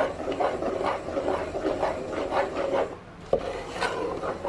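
Flat wooden spatula stirring thick dosa batter in a metal bowl, scraping and rubbing against the bowl in repeated strokes about three a second, with a brief pause near the end. The rice and urad dal batters are being mixed together before fermentation.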